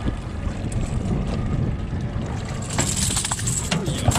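A freshly landed threadfin salmon thrashing on an aluminium boat deck, giving a burst of knocks and metallic rattling from about three seconds in, over a steady low rumble.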